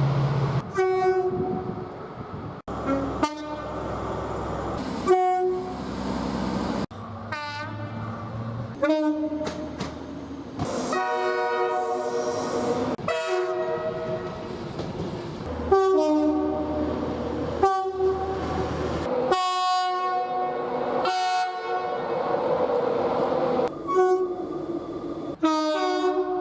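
British train two-tone horns: a rapid series of short two-note horn blasts from different trains, one after another with abrupt cuts between them. Train running noise is heard under some of the blasts.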